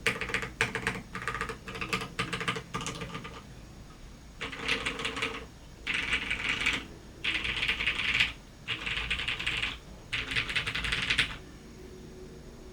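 Typing on a custom mechanical keyboard: an LZ GHv1 TKL with a polycarbonate plate, lubed Cherry MX Clear switches and PPS keycaps. Separate keystrokes at first, then five quick bursts of rapid typing, stopping shortly before the end.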